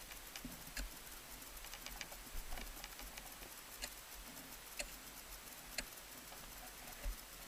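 Ice climbing gear against the ice: irregular light clicks and taps, about one a second, of ice axe picks and crampon points on ice, over a low rumble.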